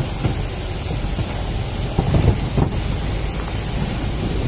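Steady low rumble and wind noise on the microphone while riding in an open VW tour car.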